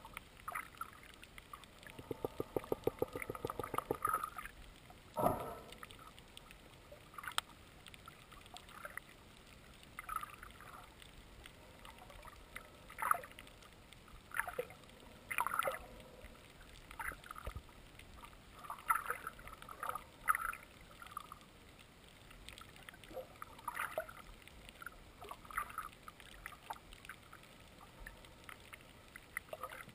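Muffled underwater sound through an action camera's waterproof housing: irregular short swishing and bubbling bursts every second or two. There is a fast rattle of ticks about two seconds in and a single knock about five seconds in.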